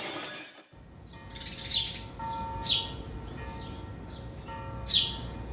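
Song intro: a burst of noise fades out, then four short, falling bird-like chirps sound over quiet held tones.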